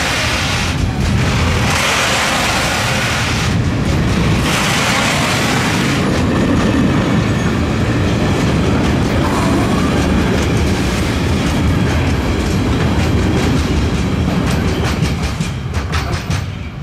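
A train passing close by: a loud, steady rumble of wheels on rail, with quick clacks of wheelsets running over rail joints in the last few seconds as it begins to fade away.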